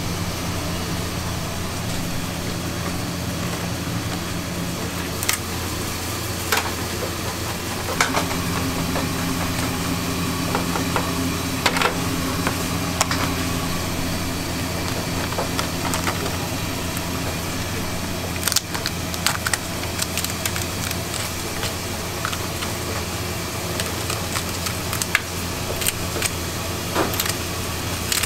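Kitchen scissors cutting through the shell and joints of a cooked king crab, in scattered sharp snips and cracks, with a steady low machine hum underneath.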